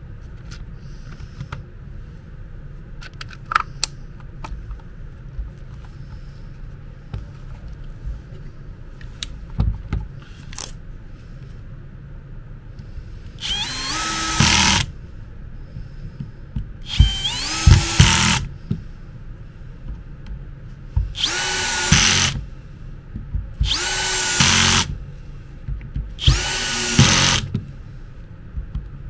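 Power screwdriver driving the screws that close the housing of a Makita DDF485 drill: five short runs, the motor winding up in pitch at the start of each. Before them, small clicks and knocks of the parts being fitted together.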